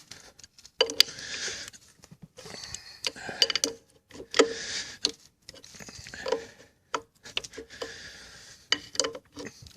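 Metal tools and installer parts being handled: irregular clinks, knocks and short metallic rings, with some rubbing and rustling between them.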